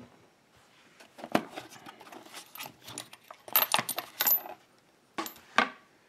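Small metal lock parts and tools clinking and tapping as they are handled and set down: a few scattered clicks, a cluster of bright ringing clinks around the middle, then two more clicks near the end.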